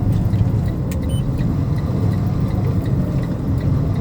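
Freightliner dump-truck sander's engine running steadily, heard from inside the cab as a low rumble, with a faint regular ticking over it.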